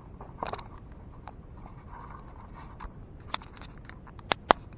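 Light knocks and clicks of handling as wooden model parts and the camera are moved about on a metal machine table, ending in two sharp clicks close together near the end.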